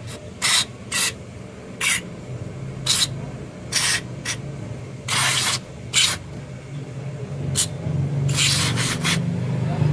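Aerosol carburetor cleaner sprayed through a thin straw nozzle into the jets and passages of a motorcycle carburetor, in about a dozen short hissing bursts, one of them held about half a second a little past the middle.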